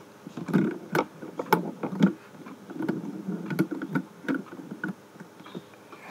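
Fidget spinners being handled and set down on a hard surface: irregular clicks, knocks and light thuds, several to a second.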